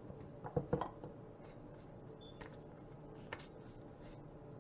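Quiet handling of spice containers: a couple of sharp clicks a little over half a second in and a few lighter taps later, as a seasoning shaker is put down and a spice box is opened, over a steady low hum.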